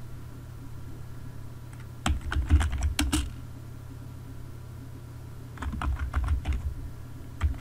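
Typing on a computer keyboard: a run of quick keystrokes about two seconds in, another around five and a half seconds in, and more starting near the end, over a low steady hum.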